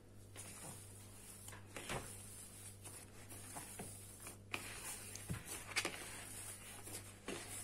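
Risen yeast dough being punched down and gathered by hand in a plastic bowl: faint soft squelching and rubbing, with a few light knocks against the bowl.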